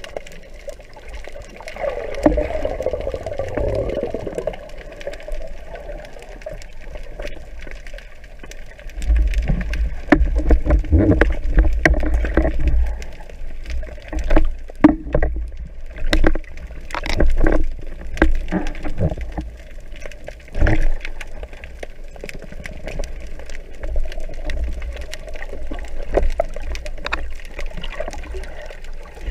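Underwater sound picked up through a speargun-mounted camera's housing: a steady muffled water rush with low rumbling and many sharp knocks and clicks, thickest and loudest in the middle stretch.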